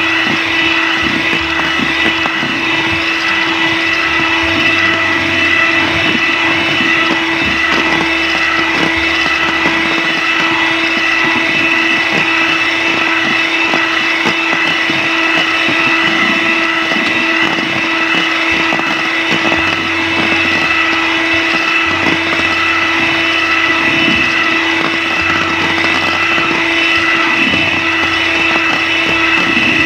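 Electric hand mixer running steadily on high speed, its beaters whipping chilled cream in a stainless steel bowl: an even, unbroken motor whine.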